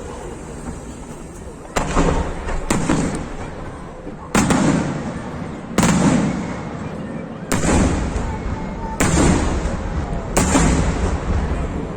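Aerial firework shells bursting: seven loud booms spaced roughly one and a half seconds apart, the first two close together, each trailing off in a rumbling echo.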